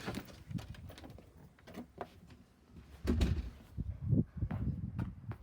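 A door being opened and handled: scattered clicks, then a run of heavier thumps about three seconds in.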